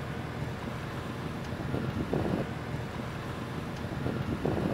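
Mercedes-Benz eActros electric truck rolling past slowly, mostly tyre and road noise, with wind on the microphone. A couple of brief louder swells come about two seconds in and near the end.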